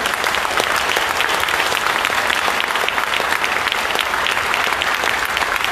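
Audience applauding, a dense and steady clapping of many hands.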